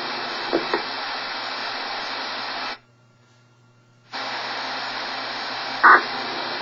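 Ham radio receiver hiss and static on an open channel between transmissions. It cuts out for about a second and a half midway, then comes back. A short burst sounds near the end.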